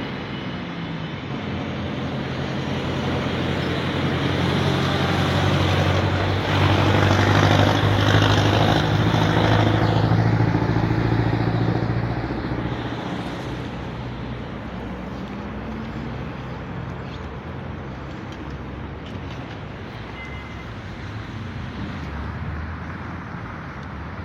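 A train running past on the station tracks: a low, steady mechanical drone with a rumble that builds to its loudest about halfway through, then fades away.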